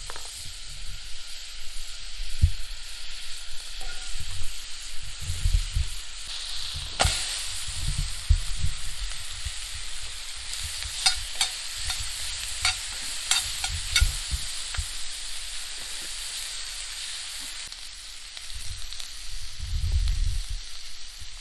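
Onions and bell peppers sizzling in a pan over a campfire: a steady frying hiss, with a run of sharp clicks about halfway through and a few low thumps.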